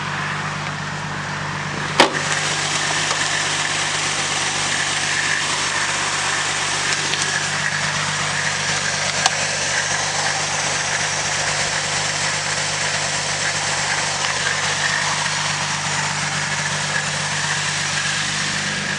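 Holden VE Commodore SV6's 3.6-litre LY7 V6 idling steadily, heard with the bonnet open, with one sharp click about two seconds in.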